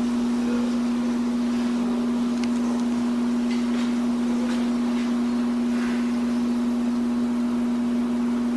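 A loud, steady hum held at one unchanging low pitch.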